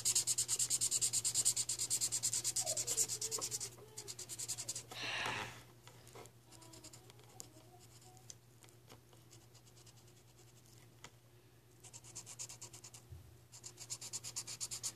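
Marker tip scribbled rapidly back and forth on paper while colouring in a drawing, many scratchy strokes a second. The strokes stop about four seconds in, leaving only a few faint scratches, and pick up again near the end.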